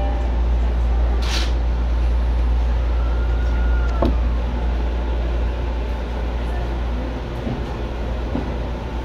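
Electric commuter train standing and then starting to pull away, heard from the front cab. Its equipment gives a steady low hum, with a brief faint tone about three seconds in.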